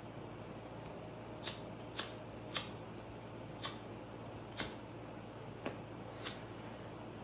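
Steady low room hum with seven short, sharp clicks spread irregularly over several seconds.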